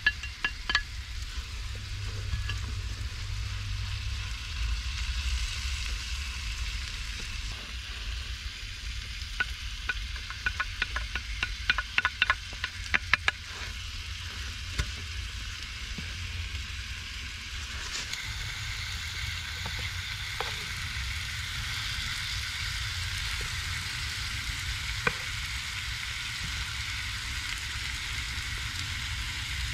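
Food sizzling in a pan over a wood fire, with a run of sharp clicks and crackles about ten to thirteen seconds in. From about eighteen seconds in the sizzle turns to a stronger, higher hiss as meat, tomatoes and peppers are stirred with a wooden spatula.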